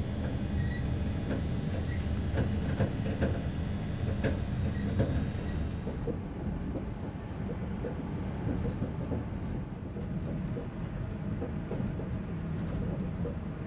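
Indian Pacific passenger carriage running along the track, heard from inside: a steady rumble of wheels on rail with many small clicks and rattles. The sound turns duller about six seconds in.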